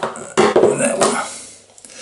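Metal wire strippers clattering onto a wooden tabletop, with a sharp knock about half a second in, along with close handling noise of small wires being worked by hand.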